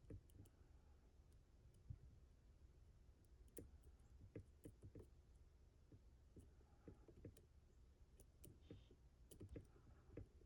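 Faint, irregular clicks and light scrapes of steel lock picks working inside a Mottura CP6 dimple lock, pushing and pulling on its rotors.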